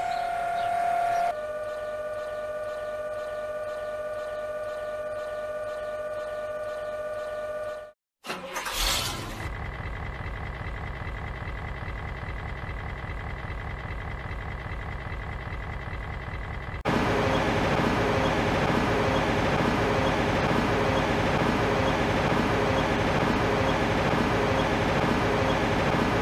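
A series of separate cartoon fire engine sound effects: a steady engine running with a humming tone, cut off at about eight seconds, then a short burst as a new engine sound begins. A steady engine sound with a high whine follows, and a louder, rougher engine sound runs through the last third.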